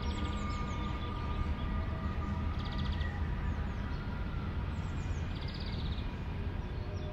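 Birds chirping, with short falling calls and two brief rapid trills, over a steady low rumble and held drone-like tones.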